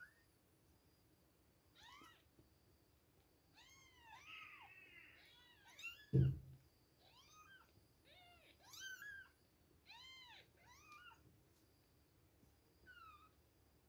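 Several two-week-old kittens mewing over and over, short high-pitched cries that rise and fall in pitch, some overlapping. A single brief low thump, the loudest sound, comes about six seconds in.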